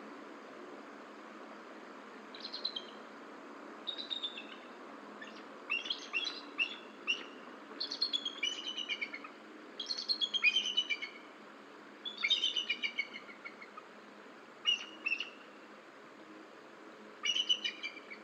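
Bald eagle calling: bouts of quick, high-pitched chattering notes that fall in pitch, repeated every couple of seconds.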